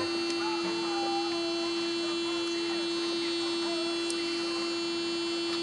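A steady hum at one constant pitch, with no change in level or pitch.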